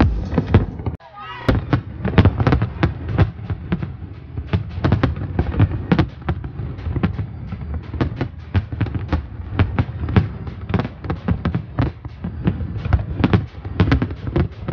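Aerial fireworks bursting in quick succession, a dense run of sharp bangs and cracks several a second.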